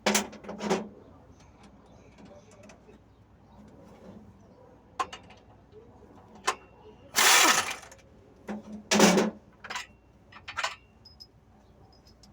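Workshop tool noise on a truck clutch job: scattered metal knocks and clanks, with heavier clanks at the start and about nine seconds in, and a short loud burst of a power tool about seven seconds in.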